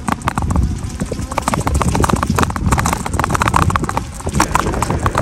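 Riding an e-bike: wind buffeting the microphone in a steady low rumble, with rapid, irregular clicking and rattling throughout.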